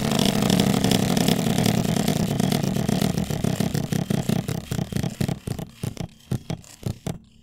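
Spinning selection wheel ticking past its pointer: a fast blur of clicks that slow steadily until the wheel stops about seven seconds in.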